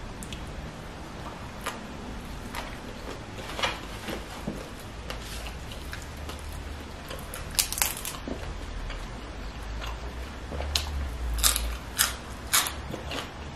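A person chewing food with sharp crisp crunches, a few close together about eight seconds in and a run of louder ones near the end.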